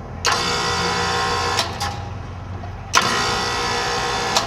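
Heat pump scroll compressor being started and stopped in quick succession, twice: a sharp click as it switches on, a steady hum for about a second and a half, then a click as it cuts out. It starts with help from a start capacitor and potential relay hard start kit.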